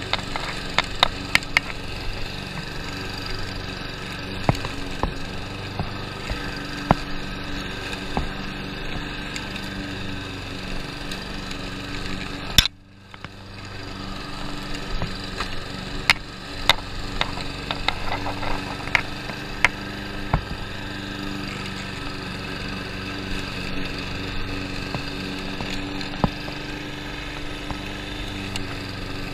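Lawn mower engine running steadily through tall wet grass, with scattered sharp clicks and knocks. About halfway through there is a loud crack, and the sound briefly drops away before the running resumes.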